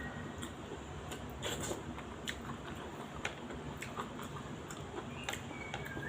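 Eating sounds: chewing and mouth smacks with scattered small clicks, about one every half second to a second. A brief high whistling tone comes in near the end.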